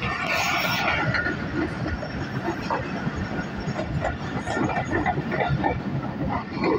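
Passenger trains running on parallel tracks: a steady rumble of wheels on rail with scattered clickety-clack, heard from an open carriage window of one of them.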